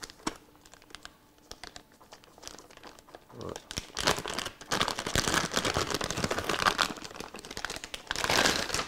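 Packaging being handled and crinkled, a few light clicks and rustles at first, then sustained loud crinkling from about four seconds in as the wrapping is worked off.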